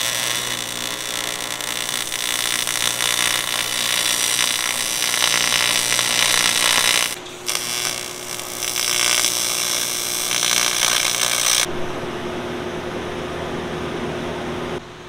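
AC TIG welding arc on 1/8-inch aluminum diamond plate, fed by a Miller Syncrowave 250 transformer welder: a loud, steady crackling buzz through two tacks, with a brief pause about seven seconds in. The arc stops near twelve seconds in, leaving a lower, steadier hum.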